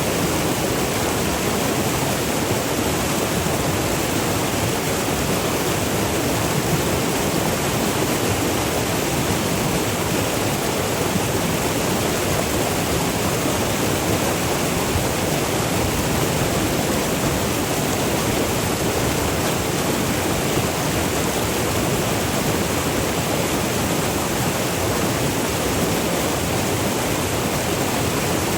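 River water rushing over small falls and cascades: a steady, even roar of moving water.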